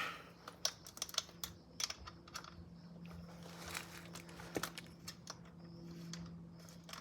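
Irregular small metal clicks and taps of an Allen key turning a bolt on a bicycle derailleur, a few a second, over a steady low hum.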